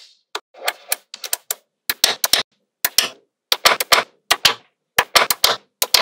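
Small magnetic balls snapping together as rows of them are pressed onto a built slab: sharp clicks in quick clusters, with short rattles as the balls roll and settle.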